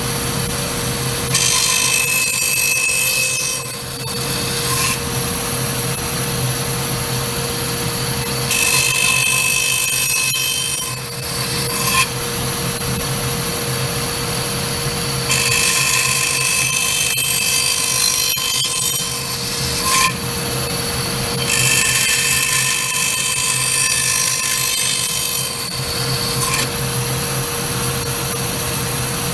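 Band saw running steadily and cutting a block of black walnut: four cuts of a few seconds each, where the noise of the blade in the wood rises over the motor's hum and then drops back. The cuts are rough cuts left about an eighth of an inch from final dimension.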